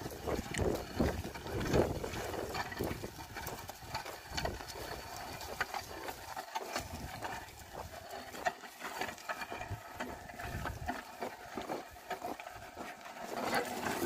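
Oxen and a person walking a wooden plough through dry soil: irregular thuds, scuffs and clicks of hooves, footsteps and the plough, heaviest in the first couple of seconds.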